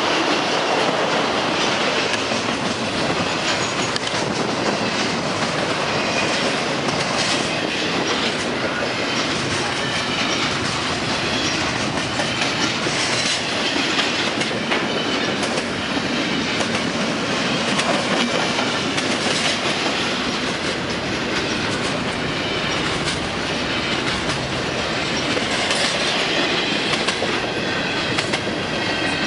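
Double-stack intermodal freight cars rolling past at speed: a steady rumble of steel wheels with clickety-clack over the rail joints and a faint high wheel squeal now and then.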